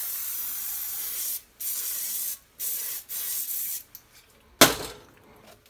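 Aerosol cooking-spray can hissing in several bursts of about a second each as it is sprayed into a frying pan, followed about a second later by one sharp knock.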